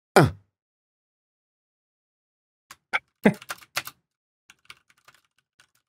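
Computer keyboard typing: a quick run of keystrokes about three seconds in, then fainter scattered taps. A brief falling sound opens it.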